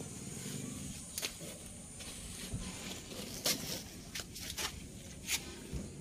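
Handling and movement noise: several short clicks and scuffs scattered over a low steady rumble, with a cluster of them past the middle.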